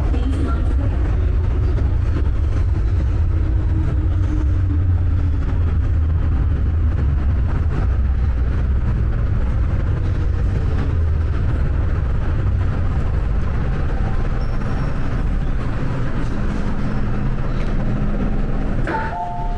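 Hong Kong MTR metro train running: a steady low rumble with a faint whine gliding in pitch. A short two-pitch electronic beeping comes near the end.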